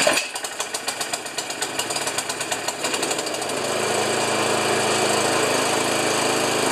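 Briggs & Stratton snowblower engine starting with the choke on: it catches with a loud bang, fires unevenly for the first few seconds, then settles into a steady run about three and a half seconds in.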